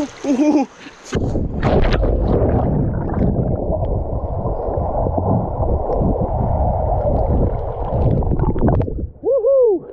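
Muffled underwater rumbling and gurgling picked up by an action camera's microphone held below the surface of a river as the swimmer moves through the water. A short cry comes just before the camera goes under, and another near the end.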